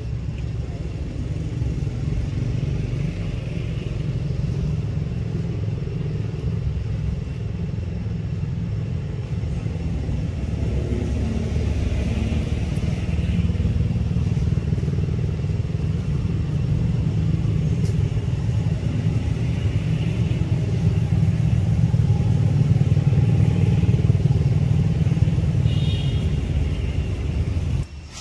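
Steady low rumble, growing louder in the second half and cutting off suddenly just before the end.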